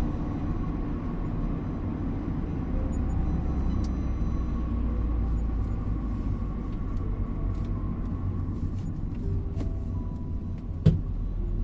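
Steady low rumble of a car driving, with a soft melody of sparse, gentle notes faintly over it. A single sharp knock comes near the end.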